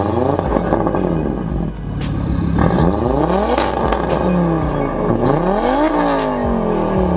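Audi coupe engine with an Integrated Engineering intake manifold, heard from behind at the exhaust, revved up and down. The pitch falls at first, climbs again a little over two seconds in, then goes through several quick blips in the second half.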